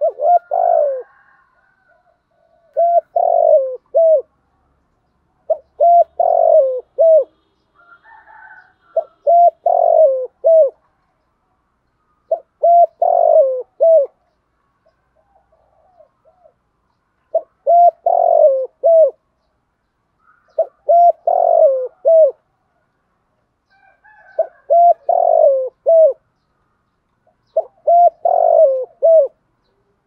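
Spotted dove cooing: a short phrase of several coos, repeated nine times about three to four seconds apart, with a longer pause around the middle.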